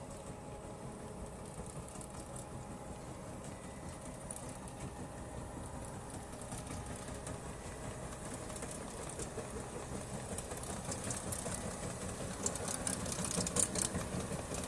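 A vehicle engine running steadily, with clicking and rattling getting louder in the last few seconds.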